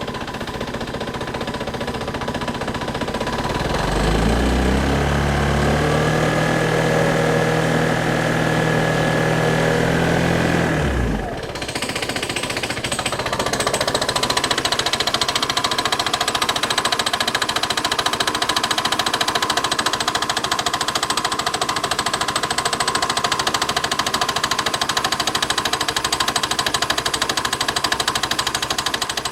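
Piaggio X Evo 125 scooter engine running with a knock. It is revved up about four seconds in and held there until it drops back suddenly around eleven seconds. It then runs steadily with a rapid knocking.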